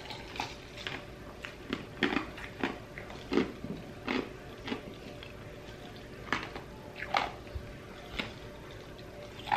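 Crushed ice being chewed close to the microphone: a dozen or so irregular short crunches, with a brief lull about midway.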